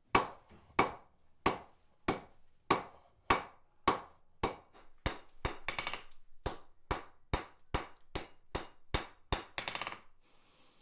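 Blacksmith's hand hammer striking a hot steel bar on the anvil, forging the tapered end of a chest-handle bale. The blows come steadily, about one every two-thirds of a second, quicken to two or three a second after the halfway point, and stop shortly before the end.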